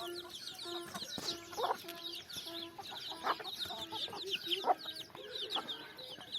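Domestic hens clucking over their feed: repeated low, drawn-out calls with a few louder, sharper squawks spread through. A dense stream of high, quick, falling chirps runs underneath.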